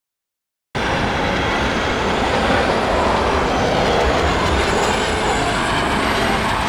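Star Wars TIE Advanced starfighter engine boost sound effect: a loud, steady rushing rumble that starts suddenly about three-quarters of a second in, with a faint high whine slowly rising above it.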